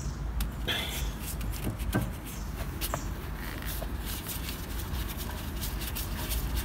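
Light, irregular clicks and scrapes of a T30 Torx key working the brake disc retaining screw on a VW Polo's front hub, over a steady low rumble.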